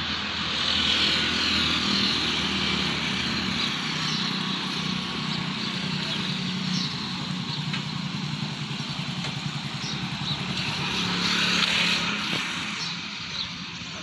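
A motorcycle engine running steadily, with the hiss of a backpack sprayer misting sanitizer over a motorcycle; the hiss swells near the start and again near the end.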